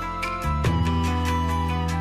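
Background music: a soft instrumental with held notes over a steady low bass, shifting to a new chord about half a second in.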